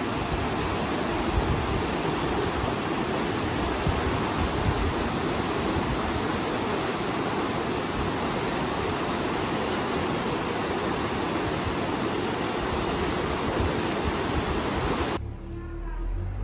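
Fast-flowing, muddy river water rushing and churning, a steady loud roar that stops abruptly near the end.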